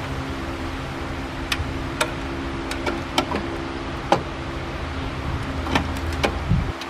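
A steady mechanical hum at one constant pitch, with a low rumble under it that cuts off suddenly near the end, and a scattering of light clicks.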